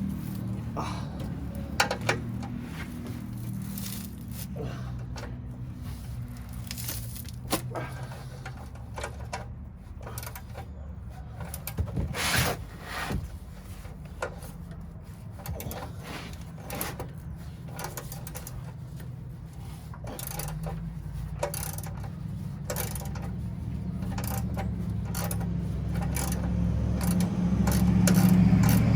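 Scattered light metallic clinks and scrapes, with a denser cluster about twelve seconds in, over a steady low hum.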